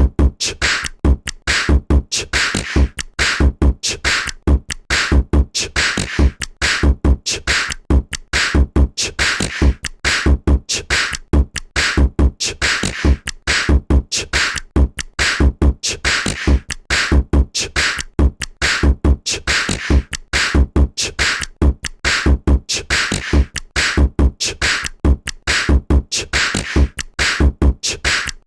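A CyanogenMod 11 ringtone: an electronic drum-and-percussion loop with deep kick-drum thumps and crisp clicking hits that repeats in a steady rhythm, then cuts off suddenly.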